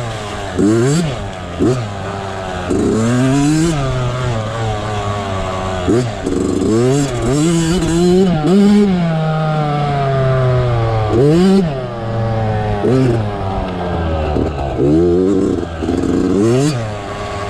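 Yamaha YZ65 65cc two-stroke dirt-bike engine heard on board while being ridden, its pitch revving up and dropping back over and over as the rider works the throttle and gears.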